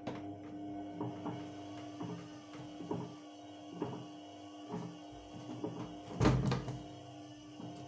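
Electrolux TimeSaver top-loading washing machine starting to run: a steady motor hum with a knock or swish about once a second as the drum turns, and a louder knock about six seconds in.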